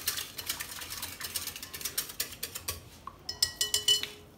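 Wire whisk beating flour into a milk-and-oil batter in a bowl: a quick, busy run of clicks and scrapes against the bowl. About three seconds in, a few sharp taps that ring briefly.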